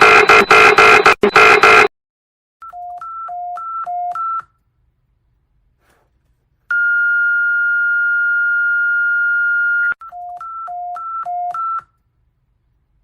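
Synthetic emergency-alert tones: high and low beeps alternating about two pairs a second and growing louder, then one steady high tone held for about three seconds, then the alternating high-low beeps again. Before them, a loud harsh electronic sound pulsing about four times a second cuts off about two seconds in.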